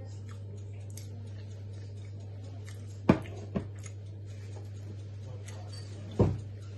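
Sharp knocks of crockery set down on a table: a loud one about three seconds in, a lighter one just after, and another strong knock near the end, over a steady low hum.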